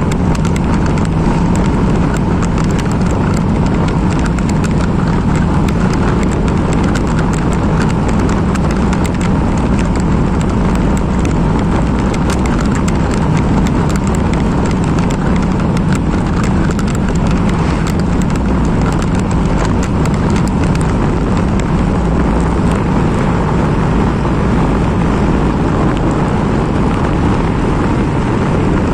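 Motorcycle running steadily on the road while riding, its engine and the wind and road noise making a continuous loud rumble, with many small clicks and knocks over it.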